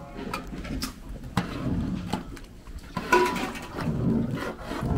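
A metal ladle stirring and scraping a thick curd-and-rice mixture in an aluminium pot, with a few sharp clinks of metal on metal.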